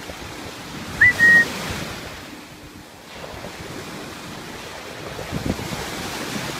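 Surf washing up on a sandy beach, with wind buffeting the microphone; the wash swells toward the end. About a second in, a brief, loud, high steady tone cuts through.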